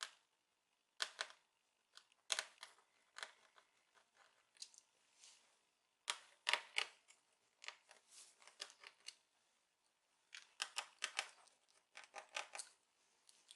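Faint, scattered clicks and scrapes of a small screwdriver turning out the screws that hold a laptop's display panel, with a few quick runs of clicks.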